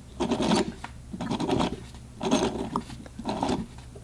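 Toyan 28cc V8 nitro model engine being turned over by hand, its overhead cams and rocker arms working through packing grease: scraping and clicking in four bursts about a second apart.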